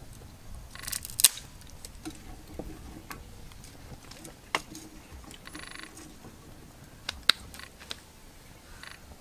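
Open wood fire crackling, with a few sharp pops spread through, along with a metal ladle knocking and scraping in an aluminium cooking pot.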